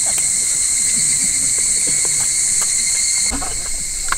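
Steady, high-pitched chorus of insects, dropping a little in level after about three seconds, with a few faint light clicks.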